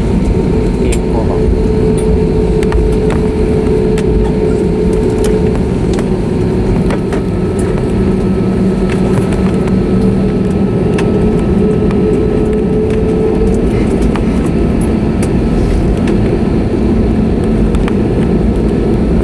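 Steady cabin noise inside an Airbus A320neo on the ground after landing: the engines' low hum with a couple of wavering tones under a constant rush, and scattered light clicks and rattles from the cabin.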